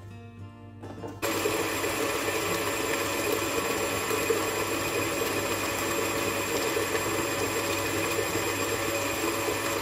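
Electric stand mixer switching on about a second in and running steadily with an even motor whine, its paddle beating a thick cream cheese, Nutella and egg-yolk filling.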